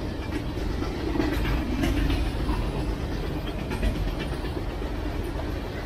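Freight cars of a Union Pacific train rolling past: steel wheels on the rails make a steady low rumble with scattered sharp clacks.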